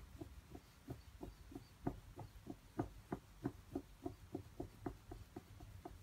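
Month-old Norwegian Forest Cat kitten giving quick, short, faint mews, about three or four a second, as it is rubbed dry in a towel.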